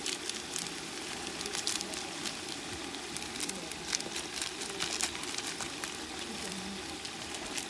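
Tomato mixture sizzling and simmering in a cooking pot, with frequent small crackles and pops.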